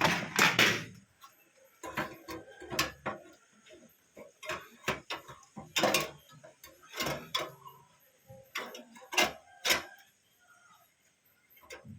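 Irregular small metallic clicks and taps of screws being driven into a desktop computer's hard-disk mount with a screwdriver.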